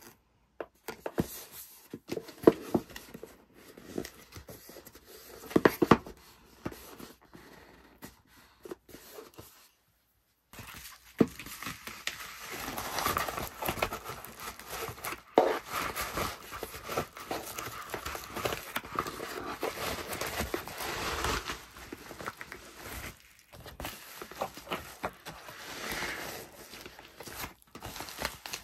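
Handling of packaging by hand: light taps and rubbing of a paper card on a kraft cardboard box. After a short gap about ten seconds in, a cardboard box slides into a plastic bubble mailer with steady plastic crinkling and rustling, which eases off near the end.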